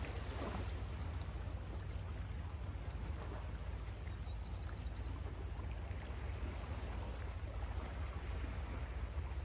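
Sea waves washing on a beach as a steady wash of noise over a low rumble, with a short bird call about four seconds in.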